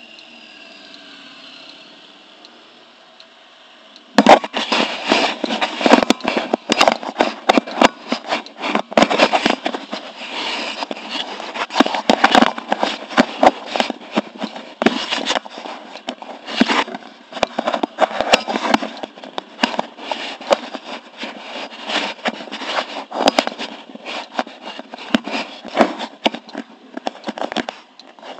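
Loud, irregular crackling and scraping of something rubbing against the camera's microphone, starting about four seconds in. Before that, a small engine idles faintly.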